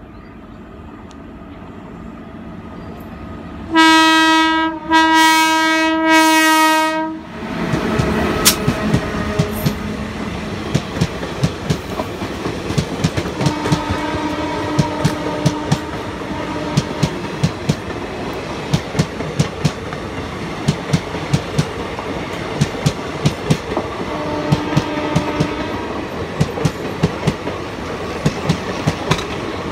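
Indian Railways WAP5 electric locomotive's air horn sounds three blasts in quick succession as the train comes in. Then the express's passenger coaches run past, their wheels clattering over the rail joints in a fast, steady clickety-clack.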